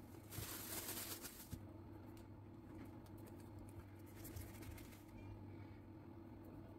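Faint handling sounds: a plastic dough scraper scraping across a floured wooden board for about a second, then soft taps and rustles, over a low steady hum.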